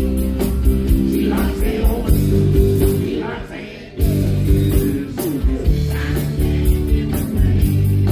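A man singing a country song live, accompanying himself on a strummed acoustic guitar, through a PA. The music dips briefly past the middle and comes back sharply about four seconds in.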